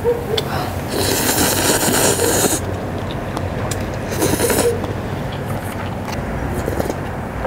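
A person slurping instant cup ramen noodles twice: a long slurp about a second in and a shorter one around four seconds.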